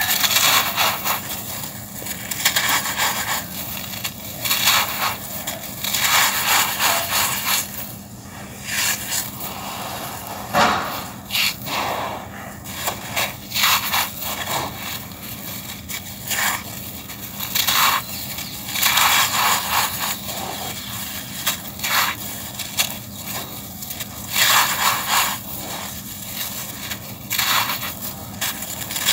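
Dry packed-sand chunks crushed and crumbled by hand: gritty crunching with grains trickling back onto a sand pile, in repeated bursts every second or two.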